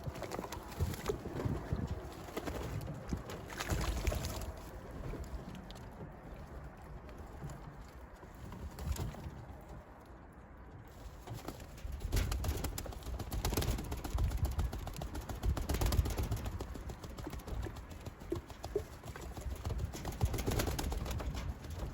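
Racing pigeons cooing, with scattered knocks and clicks from the birds moving about.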